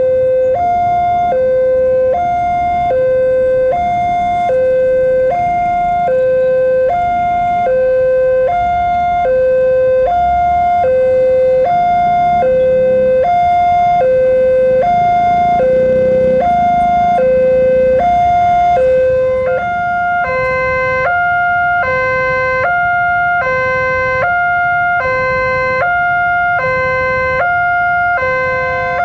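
Railway level-crossing alarm sounding from the speaker on the crossing pole: an electronic two-note warning tone alternating high and low, about one high-low pair a second. About two-thirds of the way through, a second alarm tone joins, slightly out of step with the first.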